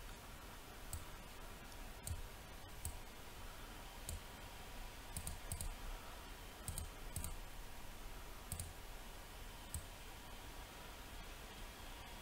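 Computer mouse clicks, about ten of them, scattered singly and in quick pairs, faint over quiet room tone.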